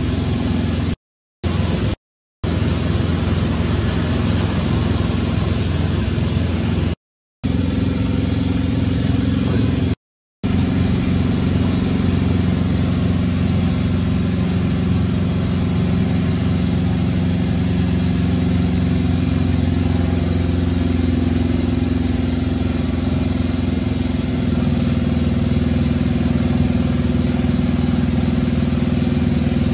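A steady low mechanical drone, like an engine running, broken by four brief cuts to silence in the first ten seconds.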